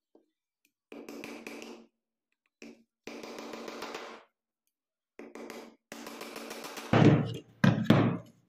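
Hammer driving small nails through thin plywood into a wooden strip, in several short bursts of taps, with the loudest blows near the end.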